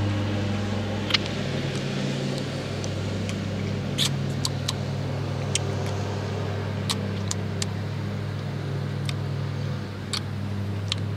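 Lawn mower engine running steadily as a low drone, with a few short sharp clicks over it.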